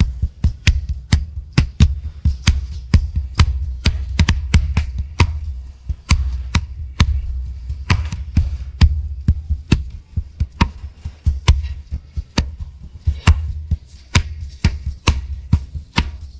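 Isolated percussion track of hands slapping on knees: a quick, steady rhythm of sharp slaps, over a low rumble.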